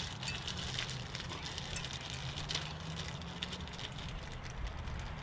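Seasoned ground beef sizzling in two cast iron skillets on a grill: a steady hiss full of small quick pops, over a low steady hum.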